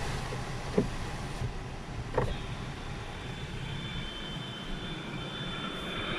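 Skoda Rapid's cabin heater blower running with a steady rush of air, and after a couple of light clicks a thin, steady high-pitched whistle sets in about two seconds in, coming from the driver's door glass with the fan on and the windows shut.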